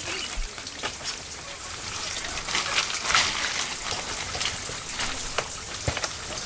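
Water trickling and splashing, with many small scattered clicks.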